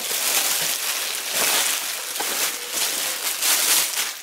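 Clear cellophane gift wrap crinkling as it is pulled off a cardboard box and crumpled by hand: a continuous crackle that swells louder now and then.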